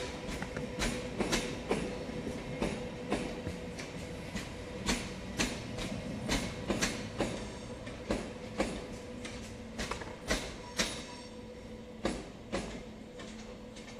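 Electric passenger train running past, its wheels clicking irregularly over rail joints and points, over a steady wheel squeal; the clicks thin out and fade as it draws away.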